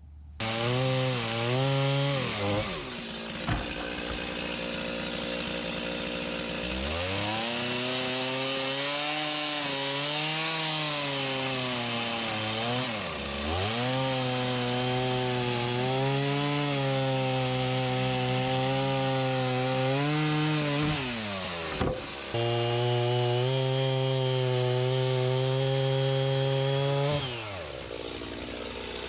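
Chainsaw cutting through the logs of a log cabin wall. The engine's pitch rises and sags under load, drops sharply a few times as the throttle eases off, and the saw stops near the end.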